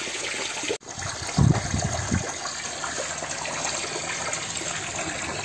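Garden hose running water into a soil furrow, a steady gushing splash. A brief dropout comes just under a second in, and a low rumble is heard about a second and a half in.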